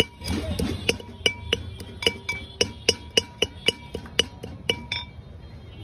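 Pestle pounding whole green chillies and chopped greens in a black mortar, about four sharp clinking strikes a second, each with a short ring. The pounding stops near the end.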